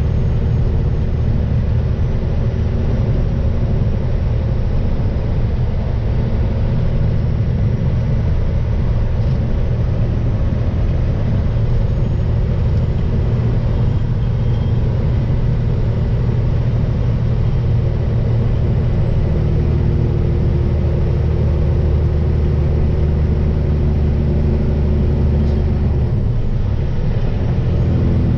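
Tractor-trailer's diesel engine running steadily at highway cruise with a low drone and road noise. The engine note changes briefly about two seconds before the end, then carries on.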